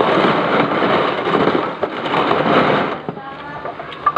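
Water rushing and spraying, a steady wash of noise that eases off about three seconds in.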